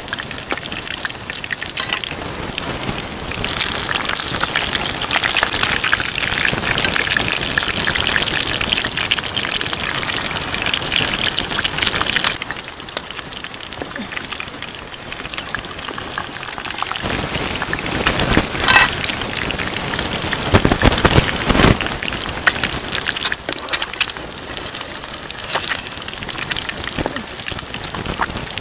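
Hot oil sizzling and crackling hard around eggs frying in green bell pepper rings in a pan over a wood fire. It eases off for a few seconds in the middle, and a few sharper clicks stand out about two-thirds of the way in.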